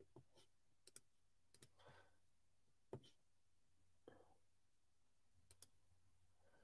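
Near silence: room tone with about half a dozen faint, scattered clicks.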